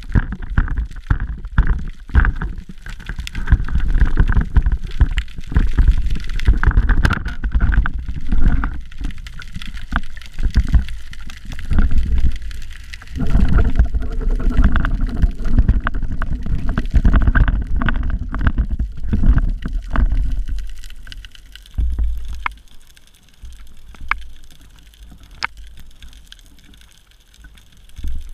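Underwater water noise on a camera fixed to a wooden speargun as the diver moves: an uneven low rumble and churning with many knocks, then quieter for the last several seconds with a few sharp clicks.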